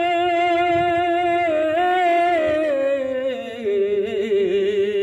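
A man singing a Bengali folk song unaccompanied, holding one long note with a slight waver. About three seconds in, the note slides down to a lower held pitch.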